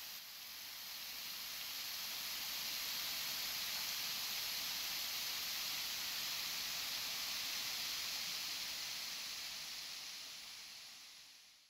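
Water pouring over a stone weir and rushing down the rocky stream below: a steady hiss that fades out near the end.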